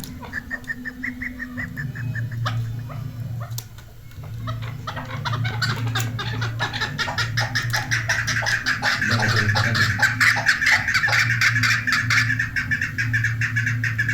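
Chukar partridge calling: quickly repeated clucking notes, a few short runs at first, then from about five seconds in a dense run of several notes a second that grows louder and carries on near the end. A steady low hum lies underneath.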